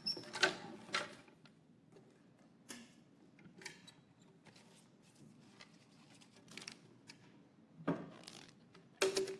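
Scattered light clicks and brief paper rustles of handling, as a paper number slip is drawn from a wooden lottery drum and passed along. The sounds come singly, a second or more apart, with a small cluster near the end.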